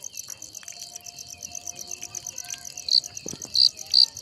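Crickets chirping in a fast, steady pulsing trill. About three seconds in, one much louder, closer cricket joins with distinct chirps repeated about twice a second.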